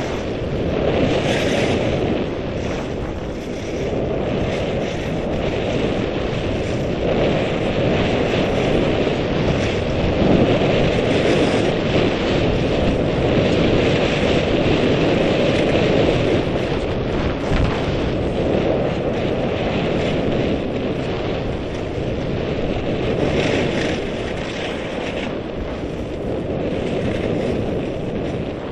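Wind rushing over the microphone of a skier going downhill, mixed with the hiss and scrape of skis on packed snow. It is continuous, swelling and easing a little as speed changes.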